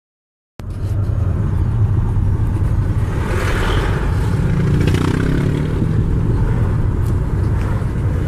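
Steady low rumble of a car's engine and road noise heard from inside the cabin while driving, starting about half a second in.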